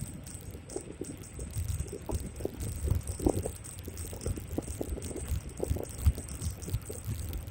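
Xiaomi M365 electric scooter rattling and clinking as it rides over a rough road, with irregular low thumps and rumble that come from the bumps and the wind on the microphone.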